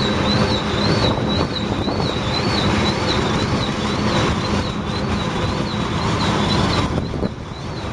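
Freight cars of a passing Union Pacific mixed freight train rolling by, with steady rumble of wheels on rail and wind buffeting the microphone. A high, wavering wheel squeal carries through the first half and fades out.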